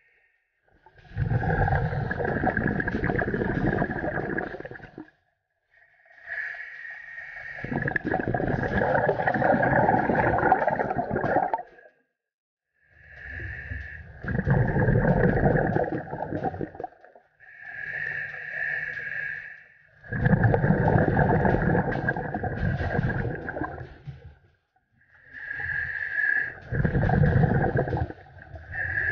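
Scuba diver breathing through a demand regulator underwater: a hissing inhalation followed by a long exhalation of bubbling, repeated about five or six times with short silent pauses between breaths.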